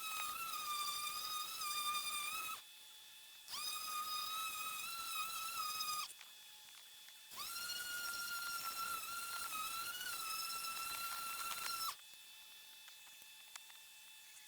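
Griot's Garage 3-inch orbital polisher running with a steady whine while wet-sanding a plastic headlight lens with a 3000-grit Trizact pad. It stops and starts again twice.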